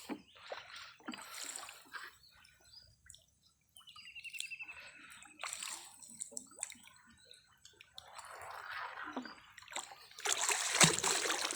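Water splashing and sloshing in several irregular bursts, the loudest near the end.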